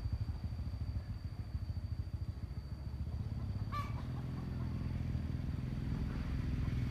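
A small engine running with a steady low pulsing that grows louder toward the end. One brief high chirp comes a little past halfway.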